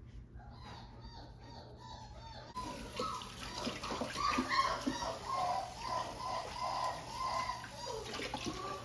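Yellow Labrador puppies whining and squealing in short, high cries. About two and a half seconds in, a kitchen faucet's pull-down sprayer comes on with a steady hiss of water, rinsing a puppy in the sink.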